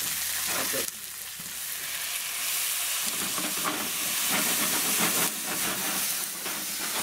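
Chopped onions sizzling in hot grapeseed oil in a skillet over a wood stove as bourbon is poured in to deglaze and flambé. The sizzle dips about a second in, then grows steadily louder from about three seconds.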